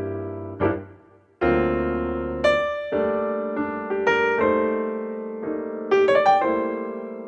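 Background piano music: chords struck with a light melody over them, and a short break about a second in.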